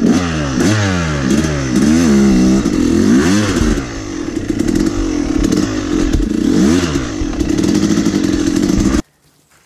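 Yamaha YZ250 two-stroke dirt bike engine revving up and down over and over as the rider works the throttle, the pitch rising and falling many times. The sound cuts off suddenly near the end.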